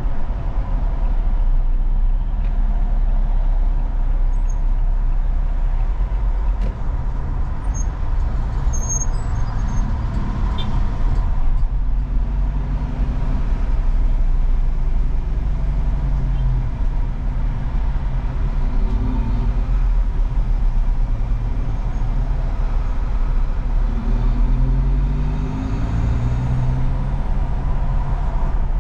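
A car being driven: steady engine and road rumble, with the engine note rising as it accelerates several times.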